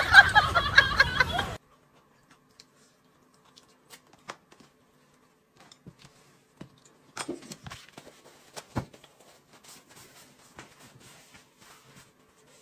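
A woman laughs briefly. A few quiet seconds follow, then a run of small clicks and knocks with one firmer knock, as chopsticks and a ceramic bowl are handled on a table.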